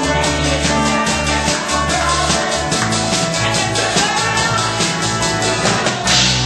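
A rock band playing live, with drums keeping a steady, quick cymbal beat over held bass notes, and a louder cymbal crash near the end.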